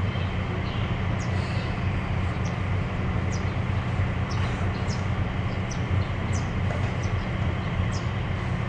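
Kanto Railway KiHa 0 diesel railcar's engine running, a steady low drone, with short high chirps scattered over it.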